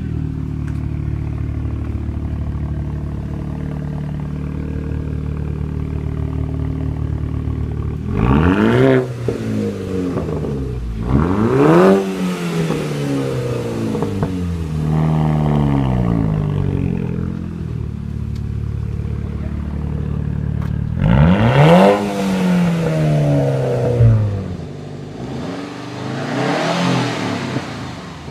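VW Eos R Turbo engine idling steadily, then revved hard several times, each rev climbing sharply and dropping back to idle. Near the end a different engine, the 2015 Subaru WRX STI with an Invidia Q300 exhaust, revs up.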